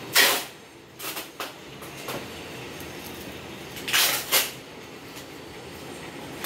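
Flattened cardboard sheets being handled and folded against a tiled floor. There are several short, loud rasping scrapes: one just after the start, a few around a second in, and two close together around four seconds in.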